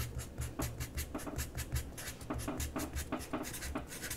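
Faint background music with a quick ticking beat over a pulsing bass line.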